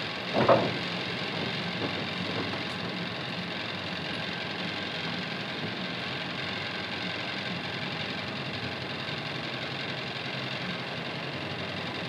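Balboa Island ferry's engine idling with a steady hum, and a single short, louder sound about half a second in.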